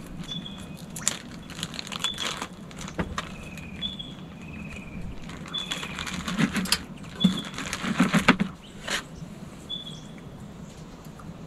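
Plastic cooking bag crinkling and rustling as cooked fish is tipped out of it with chopsticks, with light clicks against a plate; the crackling is heaviest in a cluster past the middle. Short high chirps recur about once a second.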